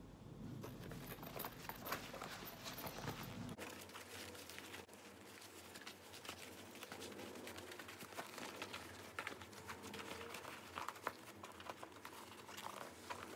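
Leather and fabric rustling and crinkling in irregular small bursts as a zippered leather bag is squeezed and turned in the hands.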